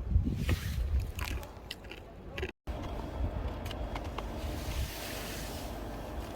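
Strong wind buffeting the microphone in gusts, with a few light clicks and knocks. After an abrupt cut about two and a half seconds in, there is a steadier, quieter noise with a faint low hum.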